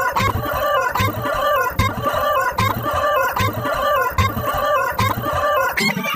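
Chicken clucking sound effect, repeated in a quick, even rhythm.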